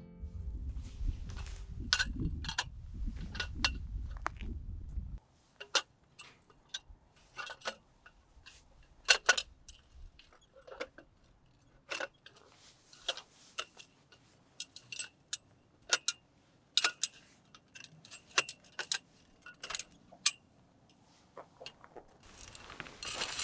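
Small metal objects clinking and tapping together, about twenty light, separate strikes with a brief ring. A low rumble stops suddenly about five seconds in, and a rustle begins near the end.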